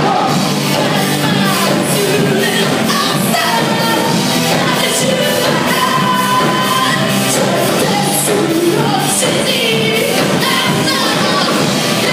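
Live rock band playing at full volume: electric guitars, bass and drums, with a sung vocal line over them.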